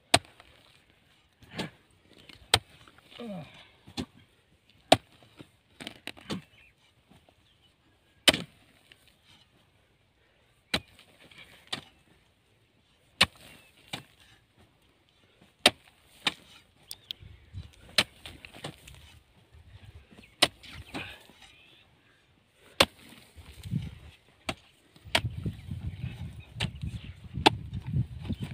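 Broad-bladed hoes chopping into dry field soil, with sharp single strikes about every one to two seconds.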